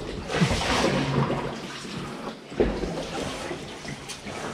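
Paddle strokes through water beside a small inflatable boat: two swishing, splashing strokes, the second shorter.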